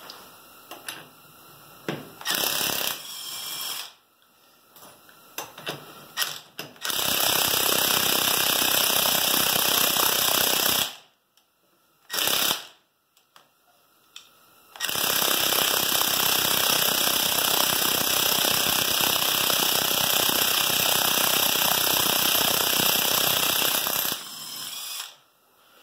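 Cordless impact wrench hammering on a truck wheel's lug nuts in several runs: a short burst, a run of about four seconds, a brief blip, then a long run of about nine seconds.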